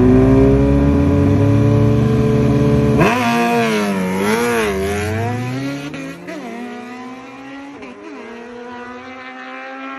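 Inline-four sport-bike engines of a Suzuki Hayabusa and a Kawasaki ZX-14 held at high revs at the start line, then launching about three seconds in. They pull away through the gears, the pitch climbing and dropping back at each shift, and fade as they run off down the drag strip.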